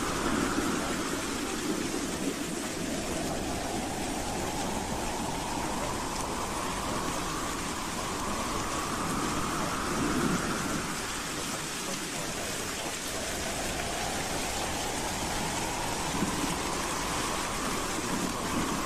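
Howling wind: a steady rushing hiss with a whistling tone that slowly rises in pitch over several seconds, twice.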